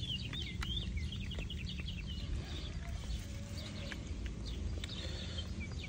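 Small birds chirping in rapid series of short, high, sliding notes, over a steady low rumble.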